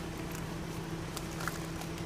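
Ford Mustang's V6 engine idling with a steady low hum, while footsteps tap lightly on concrete a few times.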